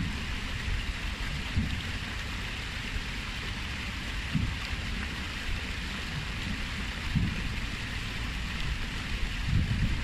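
Water spilling down a stepped stone cascade fountain: a steady splashing hiss, with a few brief low rumbles.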